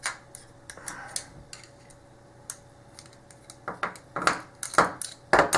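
Sharp metal clicks and clatter from a padlock and small hand tools being handled on a work surface. The clicks are sparse at first, then come faster and louder over the last two seconds.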